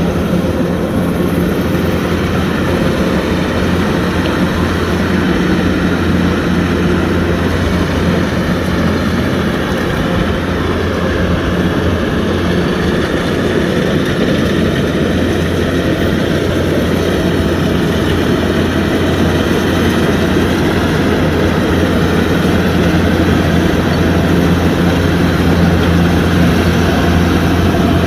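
Kubota DC-105X combine harvester running steadily while harvesting rice: a loud, even diesel engine drone with the clatter of the harvesting machinery, no change in pace.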